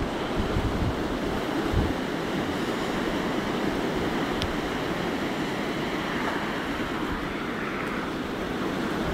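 Blizzard wind blowing steadily, with gusts thumping on the microphone a couple of times in the first two seconds.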